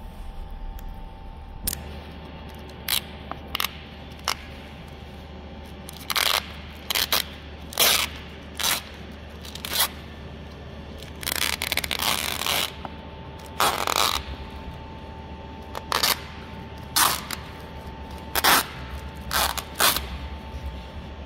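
Thin plastic vacuum-skin film being peeled off a plastic food tray and crinkled in the hands: short, irregular crackles, with a longer stretch of crackling a little past the middle.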